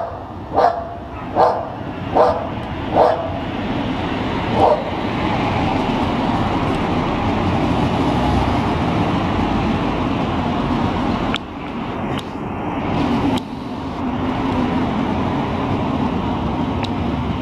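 A dog barks six times in the first five seconds, roughly one bark a second, over the steady noise of street traffic. The traffic noise then carries on alone.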